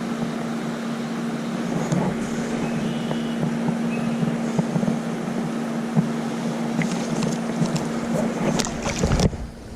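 Creek water rushing and rippling steadily over rocks, with a steady low hum underneath; it drops away about nine seconds in.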